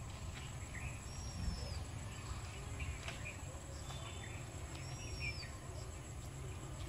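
Outdoor ambience of birds chirping, with two short whistled calls that rise and fall, over a steady low rumble and a faint, steady high-pitched tone.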